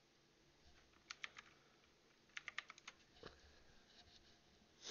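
Faint computer keyboard typing: a few keystrokes about a second in, then a quicker run of about six keys a little later, with a couple of stray key clicks after.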